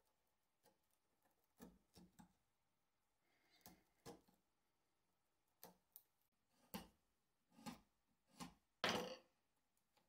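Narrow hand chisel paring and chopping out a recess in plywood: about a dozen short, irregular cuts and scrapes, with the longest and loudest one near the end.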